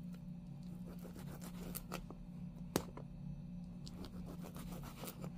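Kitchen knife slicing through a bundle of dried Chinese sausages (lap cheong) on a paper plate: quiet, irregular cuts and taps of the blade against the plate, with one sharper click about halfway through. A steady low hum runs underneath.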